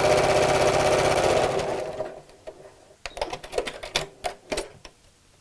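Janome Memory Craft computerized sewing machine stitching a seam along zip tape at a steady speed, then slowing and stopping about two seconds in. A handful of sharp clicks follow.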